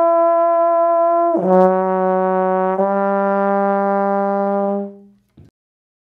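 Tenor slide trombone holding a high note, then sliding down to a lower note that is tongued again and sustained. The last note fades out about five seconds in.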